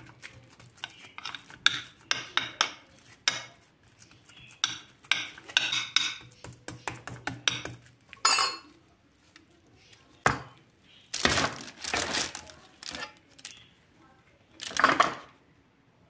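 A metal spoon scraping and clinking against a glass baking dish and a plate as ground meat is scooped out and pressed into a patty: many short clicks and scrapes, then a few longer, louder rasping sounds in the second half.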